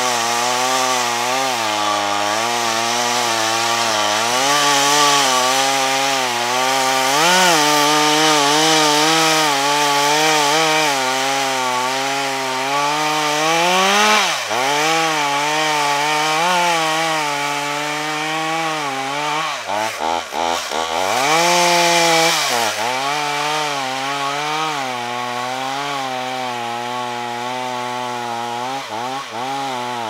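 Stihl MS 440 two-stroke chainsaw with a 63 cm bar running at high revs under load, cutting through the trunk of a spruce to fell it. The engine pitch wavers as the chain bites and eases, dropping sharply for a moment about halfway through and again about two-thirds in.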